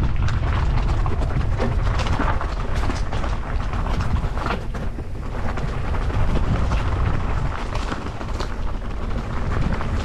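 Mountain bike rattling and clattering over a rough, stony trail, with a steady heavy wind rumble on the camera microphone as it rides.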